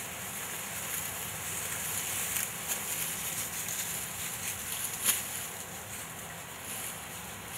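Dry leaves rustling and crackling under Harris's hawks and a kneeling falconer as the hawks hold down a killed rabbit, with one sharp click about five seconds in.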